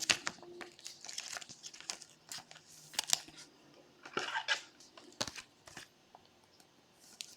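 Trading cards and crinkly foil pack wrappers being handled on a table: scattered rustles, crinkles and light clicks.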